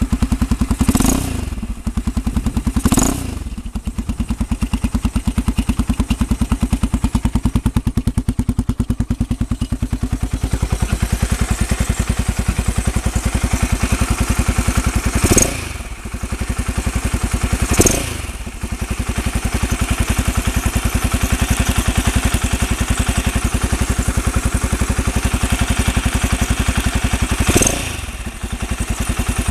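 Gilera Saturno's single-cylinder four-stroke engine idling with an even pulse, blipped five times by the throttle, each blip a quick rise in revs that drops back to idle. The engine is being run to show an abnormal noise.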